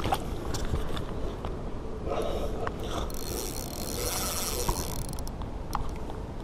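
Spinning fishing reel being cranked, its gears whirring steadily for about two seconds, amid scattered clicks of the rod and reel being handled.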